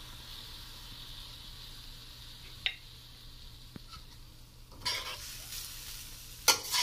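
Pork and vegetable stir-fry with its freshly added sauce sizzling faintly and steadily in a stainless steel wok. From about five seconds in a metal spatula scrapes and tosses the food, knocking sharply against the wok twice near the end.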